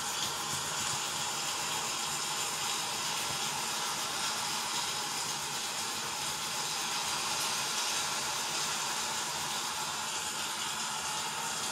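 Recorded heavy rain of a hurricane storm sound: a steady, unbroken hiss of rushing rain.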